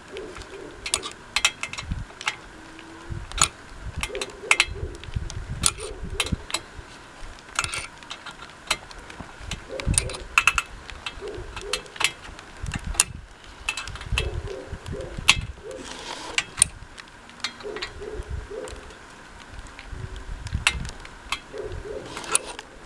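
Allen wrench clicking and clinking against a steel bolt and bracket as it is turned in short strokes, tightening the stabilizer clamp of a hand-crank laundry wringer. The clicks come irregularly, a few a second.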